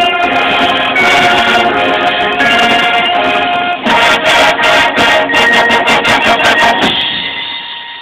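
High school marching band playing the close of its show: held brass chords, then from about four seconds in a run of loud accented hits with percussion, cut off together near seven seconds and left ringing.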